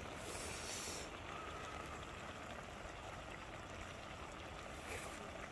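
Mackerel-and-radish braise simmering in a wide steaming pot: a steady hiss, with a short sharper hiss about half a second in.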